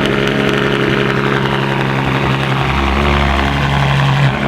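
Ferrari F12 Berlinetta's 6.3-litre V12 idling steadily through an extremely loud straight-piped exhaust: downpipes with the stock piping chopped up and run out to the bumper.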